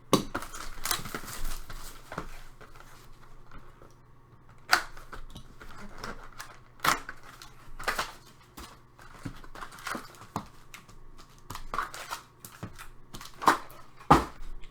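Trading cards and packaging handled on a table: scattered clicks, taps and paper rustles, with sharper snaps about five, seven and eight seconds in and twice near the end.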